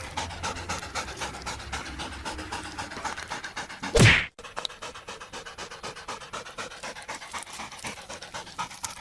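Fast, rhythmic panting, like a dog's, in quick even breaths. About four seconds in, a short, loud burst of noise cuts in, then the sound drops out for a moment before the panting resumes.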